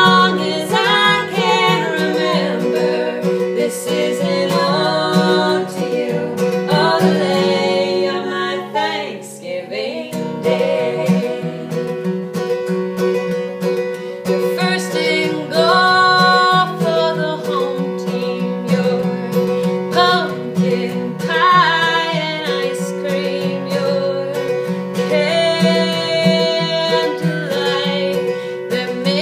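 Two women singing a folk song together, accompanied by an acoustic guitar.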